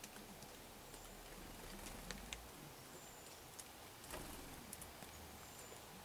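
Faint, scattered sharp taps and ticks of a black-capped chickadee pecking at seed on a wooden platform feeder, a few brief very high thin notes now and then, over a quiet hiss.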